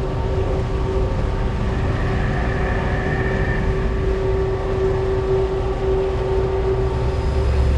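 A large fishing boat's engine running steadily: a low rumble with a constant hum over it.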